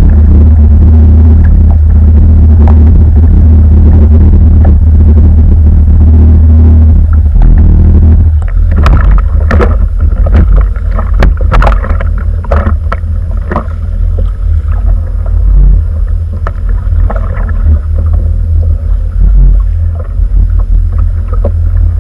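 Loud low rumble of wind and choppy water buffeting a kayak-mounted action camera; it eases and turns uneven about eight seconds in. From then on come scattered knocks and clatter as a freshly landed mahi-mahi is handled on the kayak deck.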